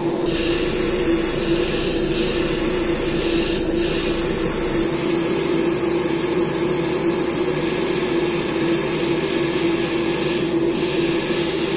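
Master airbrush spraying thinned transparent brown paint, a steady hiss of air and paint that starts just after the beginning and does not let up, over a steady low background hum.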